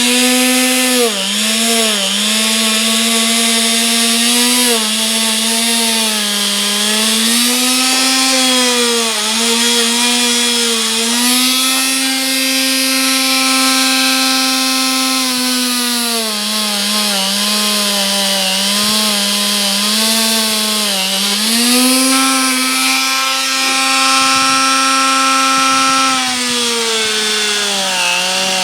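Motor-driven wire wheel spinning and scrubbing steel crimpers: the motor's hum dips in pitch again and again as the work is pressed into the wheel, then recovers, over a steady hiss of the wires brushing the metal.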